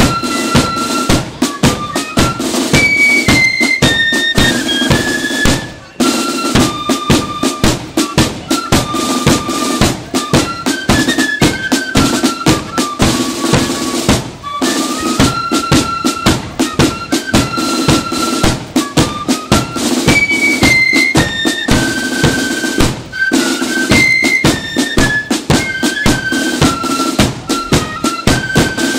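Flute band marching and playing: flutes carry a stepping melody over rapid snare drum strokes and bass drum beats, with a brief break between phrases about every eight seconds.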